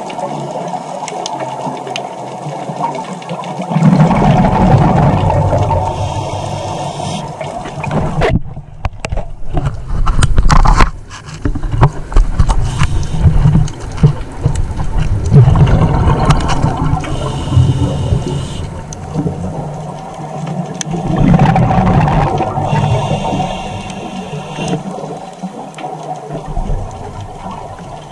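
Scuba diver's regulator breathing heard underwater: a rush of exhaled bubbles every few seconds, each lasting a few seconds, with quieter gaps between.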